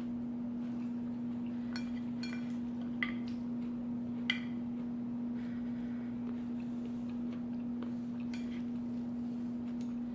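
A fork lightly clinking against a salad dish a few times while eating, over a steady low electrical hum.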